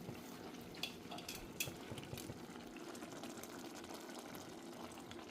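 A pot of rice simmering on low heat, a faint steady bubbling hiss with a few small clicks in the first couple of seconds.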